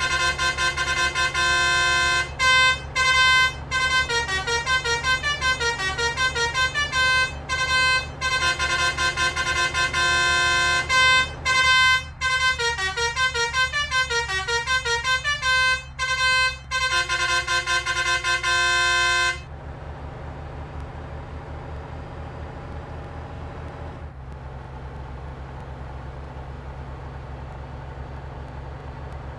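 Basuri telolet bus horn playing a long melodic tune of several notes, over the bus's engine running. The horn stops abruptly about two-thirds of the way through, leaving only the engine and road noise.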